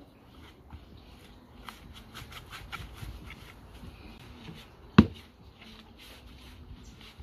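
Hands kneading soft flour dumpling dough in a plastic bowl: quiet squishing and small clicking ticks, busiest from about one and a half to three and a half seconds in. About five seconds in there is one sharp, loud thump.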